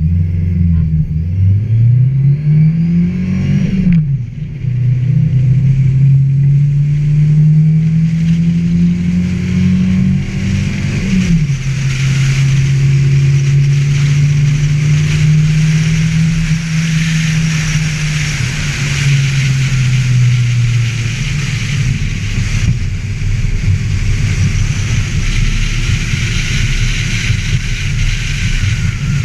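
Ford Festiva's four-cylinder engine accelerating hard: it revs up, shifts up about four seconds in and again about eleven seconds in, then holds a steady pace and eases off near the end. A steady rushing noise grows in under the engine from the second shift on.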